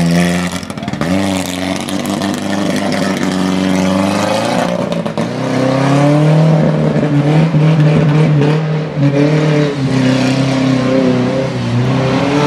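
Modified pickup truck's engine revving hard, its pitch dipping and rising again as the throttle is worked, then held high and wavering under load.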